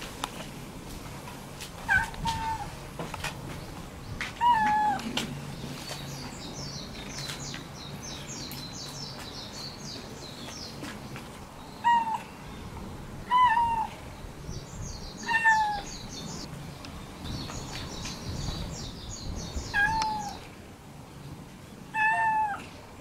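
Orange tabby cat meowing seven times, in short calls that drop in pitch at the end, spaced irregularly with gaps of up to several seconds. Rapid high chirping sounds faintly in the background between the meows.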